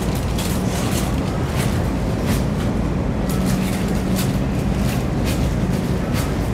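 Footsteps about twice a second over a steady rumble with a constant low hum, as of someone walking while filming on a hard store floor.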